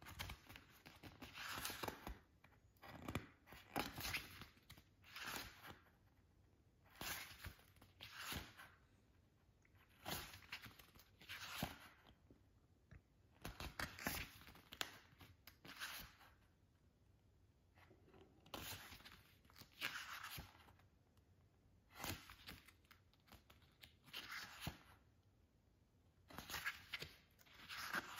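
Pages of a booklet being turned by hand, each turn a short papery rustle, about one every second or two.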